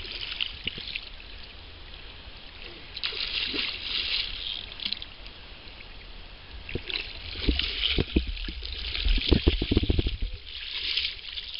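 River water splashing and trickling around a just-landed salmon, with a cluster of knocks and thumps about seven to ten seconds in.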